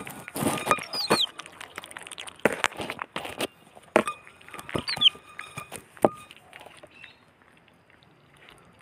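Otter pup eating fish pieces from a glass plate: its teeth and the plate knock and clink on the table, with wet chewing. The pup gives two short, high squeaks that fall in pitch, about a second in and again near five seconds.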